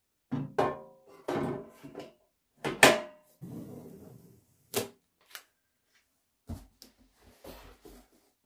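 Cosori air fryer basket and crisper plate clattering and knocking as they are handled and slid back into the fryer, with short ringing clanks, the loudest about three seconds in. This is followed by a few lighter clicks and paper rustling.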